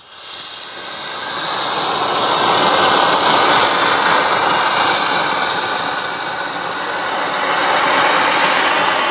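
Home-made sugar rocket motor burning with a loud, steady rushing hiss as its thrust drives a small PVC-pipe boat across the water. The sound builds over the first couple of seconds, eases a little about two-thirds of the way through, then swells again.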